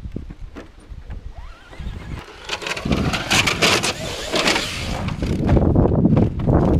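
Brushless Traxxas Slash RC truck taking off at full throttle and running up a sand slope, its motor and spinning tyres spraying sand. The sound starts quietly and turns loud about two and a half seconds in.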